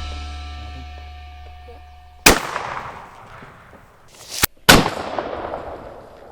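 A 20-gauge single-shot shotgun blast, heard twice about two and a half seconds apart, each sharp with a long echoing tail. The second blast comes after a short rising whoosh that cuts off into a moment of dead silence. A last held musical note fades out before the first blast.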